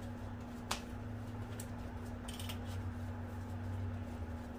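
Bread dough being shaped into a ball by hand on a floured wooden board: faint soft handling sounds and a few light clicks over a steady low hum.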